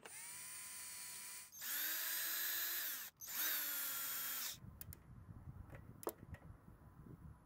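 Cordless drill with a socket bit driving in the bolts of a lawn mower's plastic air filter base: three runs of motor whine, each a second or so long, the second and third louder. After that, a few faint clicks as the bolts are handled.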